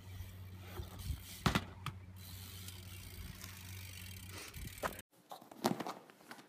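Faint ratcheting ticks from a BMX bicycle's freewheel hub as it coasts, over a steady low hum, with a couple of sharp clicks. The sound cuts off suddenly about five seconds in.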